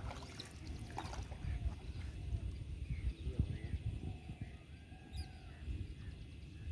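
Low, steady rumble of water and wind around a small outrigger canoe on a lake, with a few faint bird calls in the middle.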